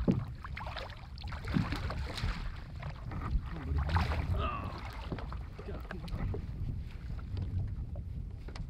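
Water sloshing with small splashes as a hooked redfish thrashes at the surface beside a plastic kayak, with wind noise on the microphone.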